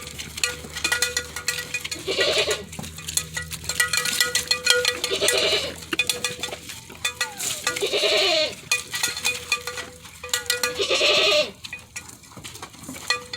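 Goats bleating at feeding time: four long bleats, about three seconds apart, over scattered clicks and knocks.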